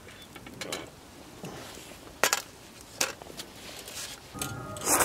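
Camp cookware and utensils clinking, with two sharp clinks among soft handling sounds.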